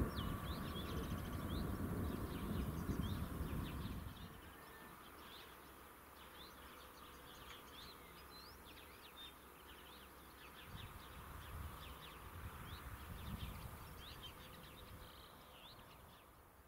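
Small songbirds chirping repeatedly in open farmland. For the first four seconds a low rumble runs under them and stops abruptly; a softer low rumble comes and goes later. The sound fades out near the end.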